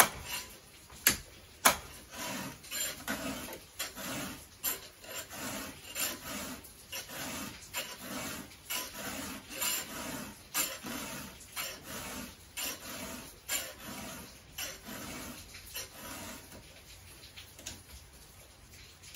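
A 3/16-inch round file rasping across a chainsaw chain's cutters in short repeated strokes, about two a second, with a couple of sharp clicks in the first two seconds; the strokes grow fainter near the end. These first strokes on the tooth are hard ones, pressed downward to cut the gullet.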